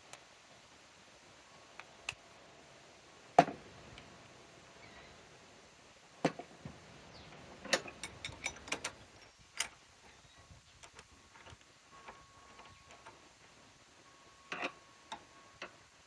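Sparse clicks and metal knocks of hand tools as a torque wrench is set and a bolt is tightened toward 50 foot-pounds, with one sharp knock about three seconds in and a quick run of clicks near the middle.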